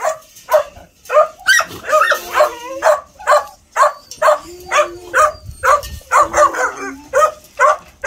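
A young dog barking over and over at the mesh of a shelter kennel, about two barks a second without a break. Between the barks there is a lower drawn-out whine.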